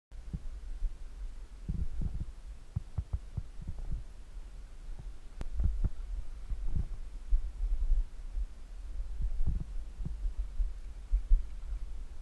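Muffled low rumble with irregular soft thumps: wind and handling noise on a GoPro camera's microphone inside its housing.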